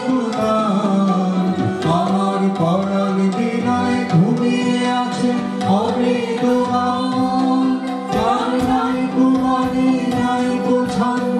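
Live Indian vocal music: a singer's gliding melodic line over a steady harmonium drone, with tabla strokes.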